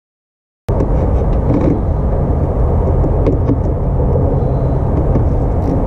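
A loud, steady low rumble that starts abruptly about a second in, with a few light clicks and taps from a screwdriver working a ground connection at the cab floor.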